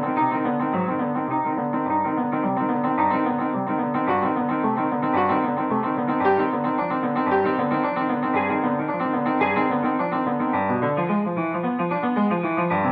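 Upright piano played solo in a fast, unbroken stream of classical notes.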